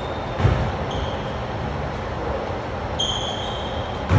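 A basketball bouncing on a gym floor, two thumps, about half a second in and again at the end, with brief sneaker squeaks on the court shortly before the second bounce, over a steady rumbling background noise.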